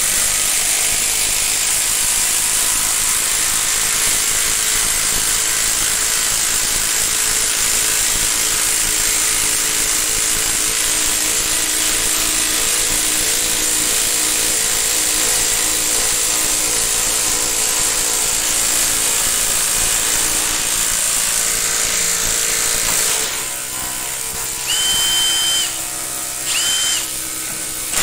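Two cordless impact tools, a Makita DTD172 impact driver and a Milwaukee M18 FIW2F12 impact wrench, hammering together as they drive 10 × 220 mm hex-head screws into a timber block. About 23 seconds in the sound thins as one tool stops. The hammering then comes in two short bursts before picking up again at the end.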